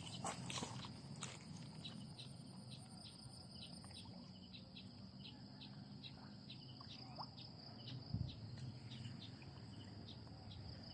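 Insects buzzing steadily in a high, thin tone, with short regular chirps about two or three times a second. A soft low thump sounds about eight seconds in.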